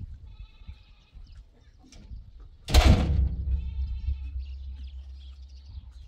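Bleating livestock, several calls near the start and again in the second half. Nearly three seconds in, a sudden loud rushing noise sets in and fades into a low rumble that lasts about three seconds.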